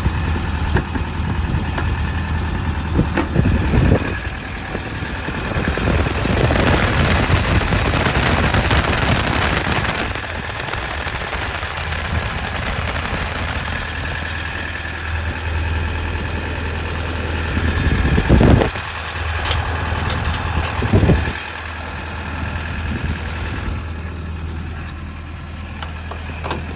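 Hitachi Zaxis 210 LC-6 excavator's diesel engine idling steadily. A few dull thumps come through, about four seconds in and twice near the end.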